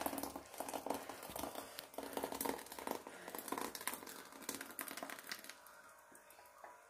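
Thick sago and jaggery payasam pouring from a steel pot into a bowl: soft, irregular wet plops and crackles. It tails off near the end.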